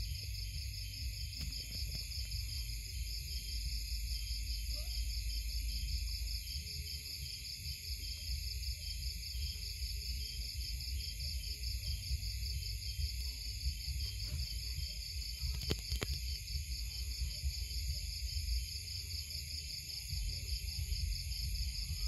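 A steady chorus of night insects, crickets among them, forming several continuous high, pulsing bands of sound, with a low rumble underneath.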